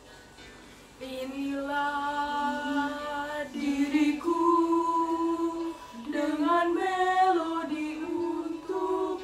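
Three girls singing together without accompaniment in long held notes that step up and down in pitch, starting about a second in.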